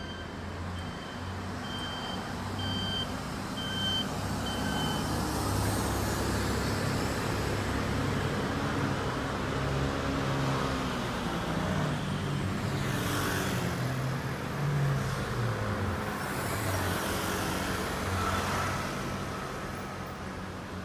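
Street traffic: motor scooters and cars passing and pulling away, their engines rising and falling in pitch. A steady high electronic beeping repeats about twice a second for the first five seconds.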